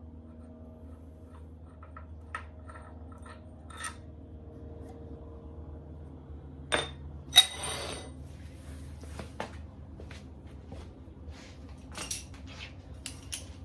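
Metal hand tools and parts clinking and clattering as they are handled and set down, with one loud metallic clang about seven seconds in that rings briefly. A low steady hum runs underneath.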